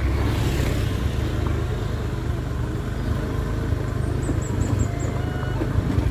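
Motorcycle running steadily at riding speed on a dirt lane, heard from the bike itself as a continuous low engine and road rumble.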